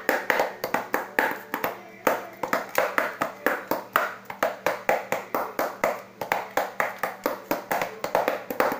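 Homemade bongo with cardboard heads over cut plastic bottles, played with bare hands: quick flat slaps and taps, several a second, in a lively uneven rhythm.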